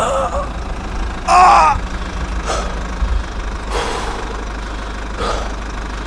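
Low, steady engine hum of a small vehicle, with a short loud voice-like exclamation about a second and a half in and a few brief swishes after.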